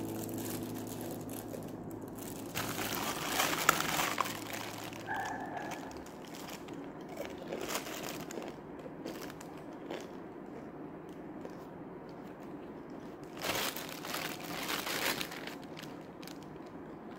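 Thin clear plastic bag crinkling and rustling as it is handled and opened, in two louder bouts: one about three seconds in and one near the end.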